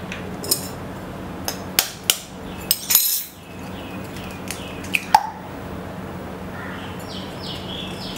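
Eggs being cracked against a glass mixing bowl: a run of sharp clicks and knocks of shell on glass, bunched in the first three seconds and again twice about five seconds in.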